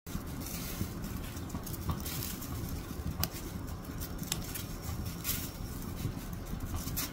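Wood fire burning: scattered sharp crackles and pops over a low, steady rumble of flame.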